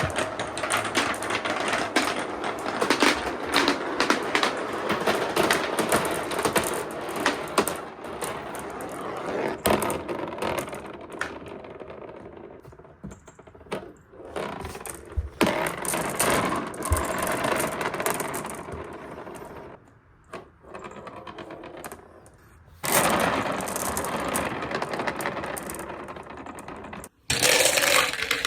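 Many balls rolling and clattering down a handmade marble run: dense, rapid clicking and rattling that thins out past the middle with short lulls, then comes back loud near the end.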